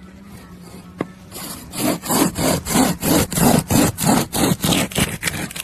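Rhythmic back-and-forth rasping strokes, about three a second, starting about a second and a half in and growing louder, with a single click just before.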